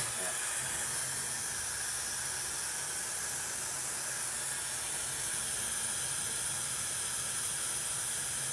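Breezelle high-speed hair dryer running steadily, blowing a constant rush of air with a faint hum underneath.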